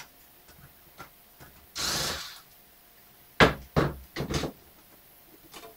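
A cordless electric screwdriver runs briefly, for about half a second, while backing out laptop screen screws. About a second later come three or four sharp knocks as the tool is set down on the workbench.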